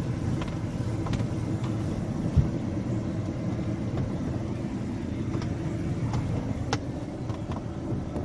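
Steady low rumble of road and engine noise inside a moving car's cabin, with one short thump about two and a half seconds in.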